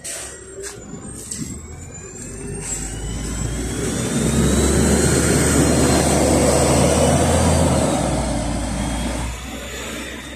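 LiAZ 5292.67 city bus with its YaMZ-53624-40 compressed-natural-gas engine pulling away from a stop. The engine builds to its loudest about halfway through and then fades as the bus drives off, with a whine that rises in pitch as it gathers speed. A few sharp clicks come in the first seconds.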